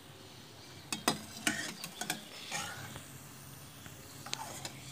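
A steel slotted spoon clinks and taps against a steel pot in a run of sharp clicks as freshly fried gulab jamuns go into the sugar syrup. Under it is the steady sizzle of more gulab jamuns frying in hot oil.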